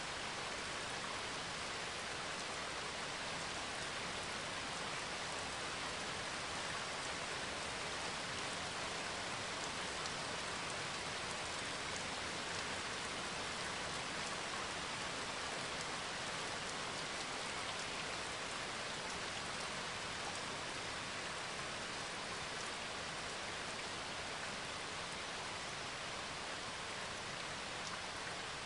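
Steady rain: an even hiss that does not change.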